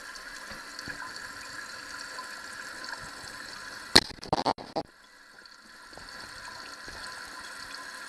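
Toilet tank refilling after a flush: the fill valve hisses steadily as water runs into the tank, and the valve has not yet shut off. About four seconds in there is a sharp knock followed by a few quick clatters, then the hiss dips and comes back about a second later.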